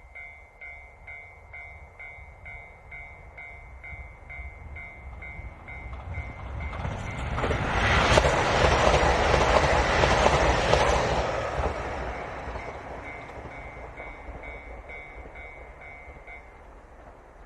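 A level-crossing warning bell dings in a steady, rapid rhythm while a KiHa 261 series diesel limited express train approaches. The train passes at speed, its engines and wheels swelling to their loudest about eight seconds in, with the wheels clacking over rail joints. The train noise then fades, and the bell stops near the end.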